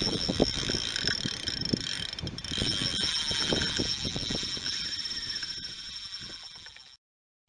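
Fishing reel's drag screaming as a hooked fish pulls line off the bent rod, a steady high whine over irregular low thumps; it fades and cuts off about seven seconds in.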